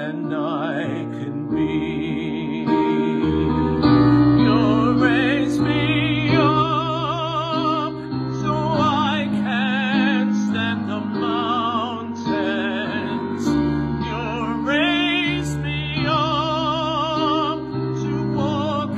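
A man singing a solo in held notes with strong vibrato over a sustained keyboard accompaniment.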